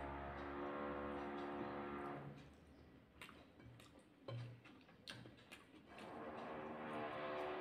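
Soft background music with steady sustained tones. It drops out for about four seconds in the middle, leaving a few light clicks and taps from eating by hand at a plate, then comes back.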